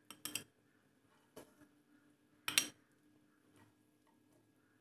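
Steel spoon clinking against a nonstick pan and a ceramic bowl as fried boiled eggs are lifted out one by one: a handful of separate light clicks, the loudest a little past halfway.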